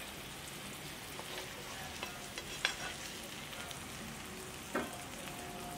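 Faint, steady sizzle of hot oil in a frying pan, with a few light clicks of metal tongs against the pan and plate as a seared tuna steak is lifted out and laid down.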